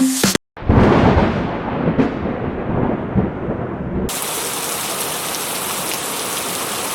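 Thunder rumbling, with a second clap about two seconds in. It gives way about four seconds in to a steady hiss of heavy rain.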